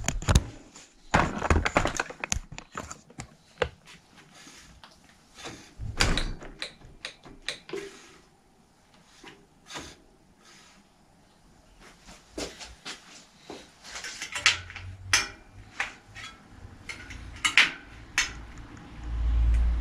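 Scattered clicks, taps and knocks of a small hand tool and bicycle parts being handled while the front brake of a bicycle is adjusted, with a few louder knocks at the start and a low rumble near the end.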